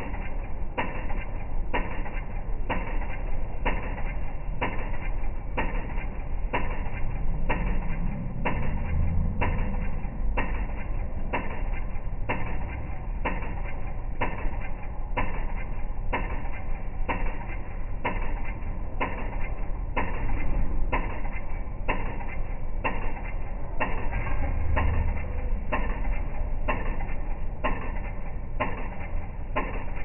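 Pedestrian crossing signal ticking slowly and evenly, a little under two ticks a second, over the low rumble of city traffic that swells twice as vehicles pass.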